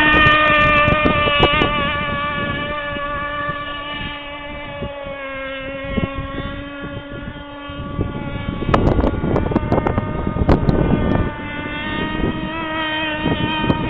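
Radio-controlled speedboat's motor running with a high, steady whine, growing fainter in the middle and louder again near the end. Gusts of wind buffet the microphone in the second half.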